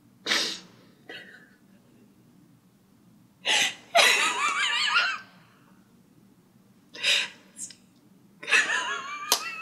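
A woman's embarrassed laughter: short breathy bursts and gasps, a longer laugh about four seconds in, and more laughing near the end.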